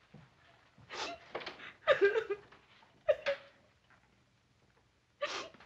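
A woman sobbing in short, gasping bursts with catches of voice: about a second in, around two and three seconds, and again near the end.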